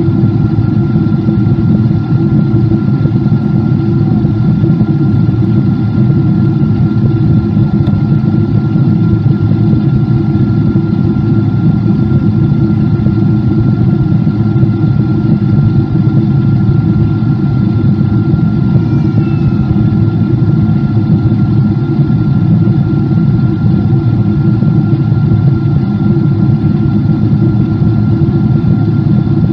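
Boeing 777-200's engines and the rush of air heard from inside the passenger cabin in flight: a steady loud drone, heaviest low down, with a thin steady whine above it.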